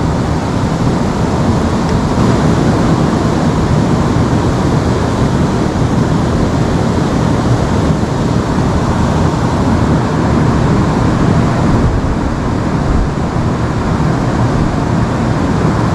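Steady rush of flowing river water, an unbroken even noise heaviest in the low end.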